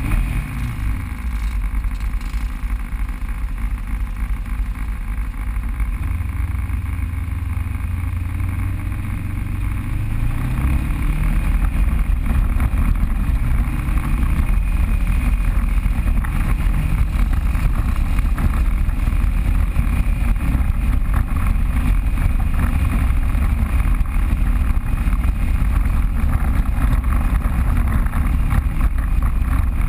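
Off-road vehicle engine running under way. Its pitch climbs about ten seconds in as it speeds up, then it holds steady and louder.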